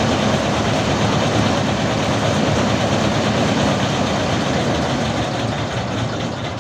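Heavy diesel engine of a large farm or earth-moving machine running steadily, easing off a little near the end.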